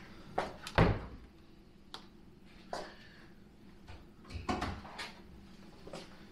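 Interior doors being handled in a house: a series of short clicks and knocks from latches and doors. The loudest is a thump about a second in, and another cluster comes a little past halfway.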